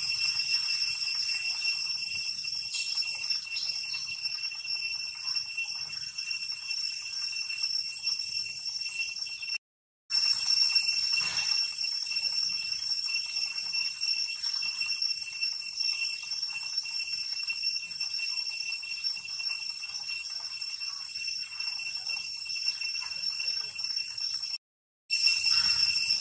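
Steady, high-pitched drone of cicadas, cutting out for a moment twice.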